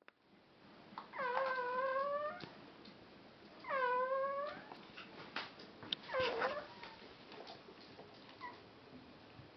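Chodsky pes whining during whelping: two drawn-out rising cries of about a second each, then a shorter falling cry, with a few faint squeaks near the end.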